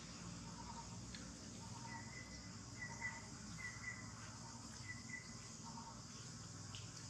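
Faint, short high chirps from a small animal repeating over a steady outdoor background hum; a higher pair-by-pair series runs from about two seconds in to about five seconds, with lower single notes repeating throughout.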